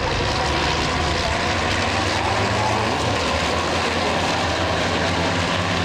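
Racing trucks' diesel engines running at speed, a steady loud drone with the engine note dipping briefly about halfway through.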